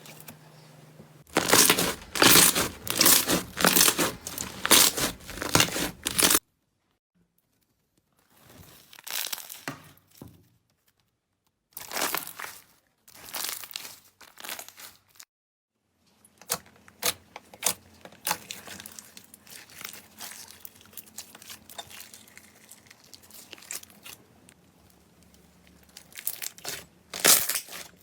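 Slime being squeezed and pressed by hand, giving dense runs of small sharp pops and clicks, in several short clips that cut off abruptly into silence about six seconds in and again about fifteen seconds in.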